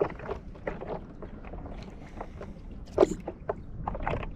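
Water slapping and lapping against a stand-up paddleboard, with a low wind rumble on the microphone. A sharper, louder slap or knock comes about three seconds in.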